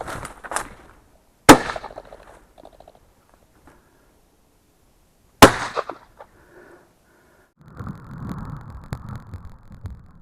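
Two shotgun shots from an MP-27 over-under, about four seconds apart, each a sharp bang with a short ringing tail. Rustling through brush follows near the end.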